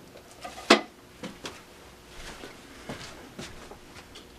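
Handling noise as unpacked plastic parts are set down on a shelf: one sharp knock a little under a second in, then several fainter knocks and rustles.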